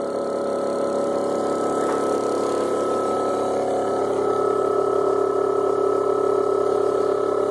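Four-pole monopole energizer pulse motor spinning its rotor and driving a 400 W wind generator: a steady machine hum with several steady pitches, growing slightly louder.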